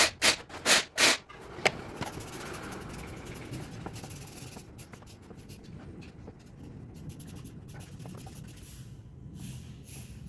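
Hand tools and metal parts handled while an engine is being taken apart: a quick run of sharp knocks and clanks in the first second, one more shortly after, then quiet rubbing and faint clicks.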